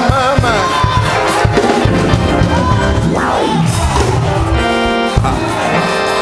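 Live church band music behind a sermon, led by organ and keyboard, with congregation voices calling out along with it.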